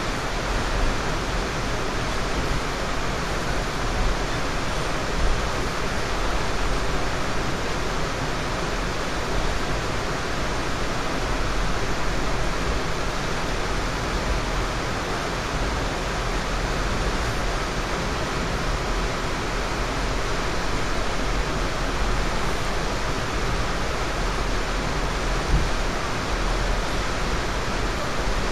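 Steady rushing noise of an Amtrak Superliner passenger car running at speed, heard from inside: wheels on rail and car body rumble, with a deep low rumble underneath. Two brief knocks stand out, one early and one near the end.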